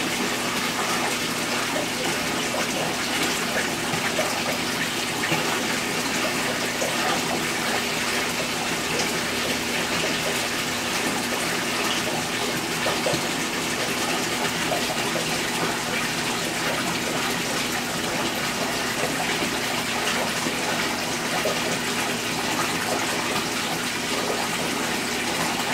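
Water running steadily in a goldfish aquarium, a continuous rush of splashing water such as a filter or pump return makes, with a faint steady low hum beneath.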